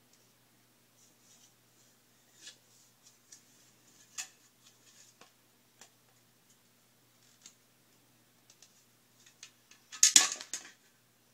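Hard plastic Mr. Potato Head pieces clicking and tapping as they are handled and pushed into the toy's body, with a louder burst of plastic rattling and clattering about ten seconds in.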